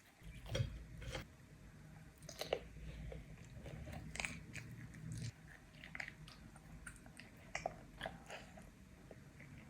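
Chewing and biting of grilled chicken and fries: faint, irregular crunches and wet smacks scattered through, with a low rumble for the first five seconds or so.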